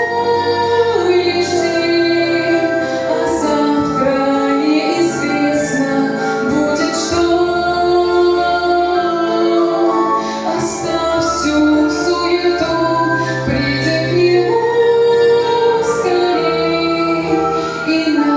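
A woman singing a Christian song over instrumental accompaniment with held low bass notes.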